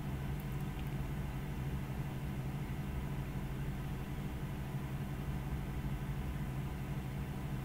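A steady low hum with faint hiss.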